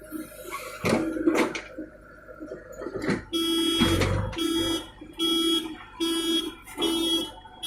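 Reversing alarm on heavy earthmoving machinery beeping at one steady pitch, a little more than once a second, starting about three seconds in. Scattered knocks and clatter come before it.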